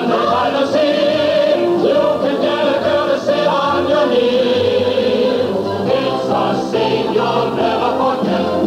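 Show music: a vocal group singing long held notes in close harmony over accompaniment.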